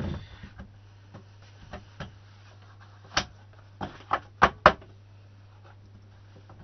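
Sharp plastic-and-metal clacks from an A4 paper trimmer and the stack of card being set into it: one knock at the start, a few light clicks, then a quick run of five clacks from about three seconds in, the last ones the loudest.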